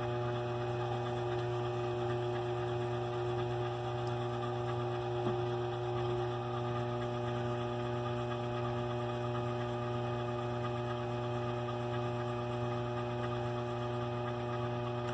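Antique 1920s lathe running steadily, driven by a DC treadmill motor on an MC60 speed control, a constant electric hum with several steady tones.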